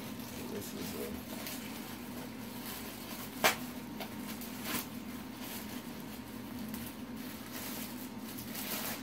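Thin plastic wrapping bag being handled, rustling and crinkling faintly, with one sharp click about three and a half seconds in and a softer one about a second later, over a steady low hum.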